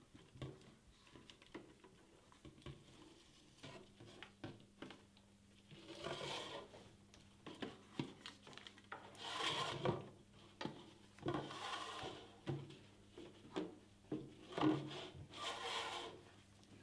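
Folded paper slips rustling and crinkling as hands draw them from a clear plastic jar and unfold them, with small taps and clicks against the jar and table. Several louder bursts of rustling come in the second half.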